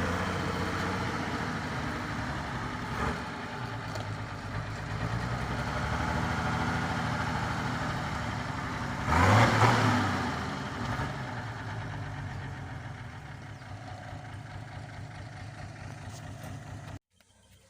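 Delivery truck's engine running steadily, swelling louder about nine seconds in, then easing off; the sound cuts off abruptly just before the end.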